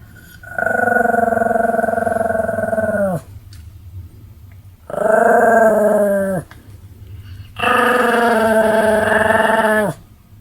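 Pomeranian snoring heavily: three long snores with a pitched, buzzing tone, each sliding down in pitch as it ends.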